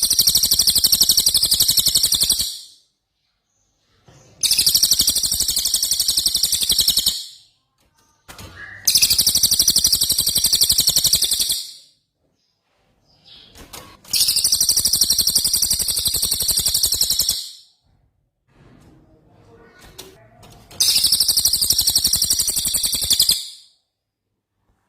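Songbird's high-pitched rapid rolling trill, the 'rol tembak' type of song used as masteran tutor material for caged songbirds. It comes in five bursts of about two and a half to three seconds each, with short pauses between.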